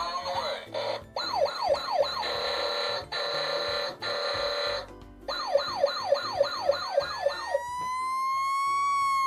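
Tonka toy fire engine's electronic siren set off by its sound buttons: a quick yelp, then a steady horn tone for a few seconds, another fast yelp, and near the end a slow wail that rises and then falls.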